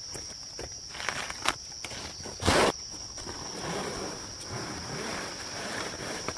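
Insects keeping up a steady high-pitched buzz, with a few sharp knocks in the first three seconds, the loudest about two and a half seconds in, followed by a rustling, scraping noise.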